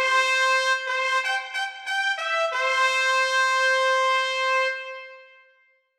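Short brass fanfare: a few quick notes, then a long held final note that fades out about five seconds in.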